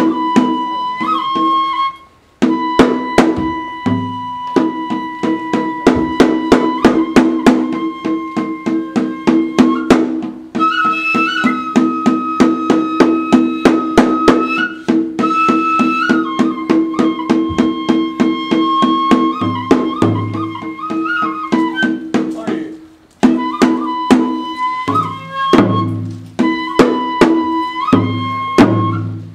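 Kagura festival music: a Japanese transverse bamboo flute (fue) holding long, wavering notes over a quick, steady beat on taiko drums. The music breaks off briefly twice, about two seconds in and again near the end.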